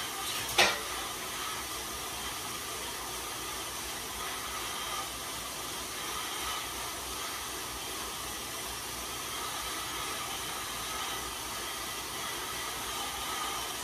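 Steady whir of a road bike's tyres spinning on InsideRide indoor rollers under steady pedalling, an even hiss with faint steady tones. A brief sharp sound comes about half a second in.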